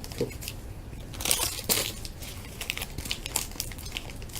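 Crinkling and rustling of plastic card-pack wrappers and cards being handled, in short scattered bursts that are loudest about a second and a half in.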